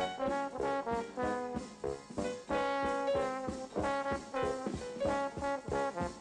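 Background music: a quick melody of short notes over a steady beat.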